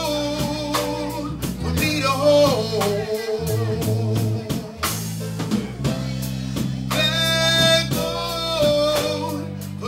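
Live soul band: a man singing into a microphone over electric keyboard chords and a drum kit keeping a steady beat.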